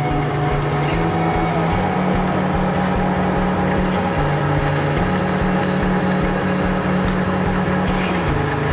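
Clausing lathe running with a steady mechanical hum, its low drive tone stepping up and down in pitch several times as the spindle speed is changed with the speed select buttons.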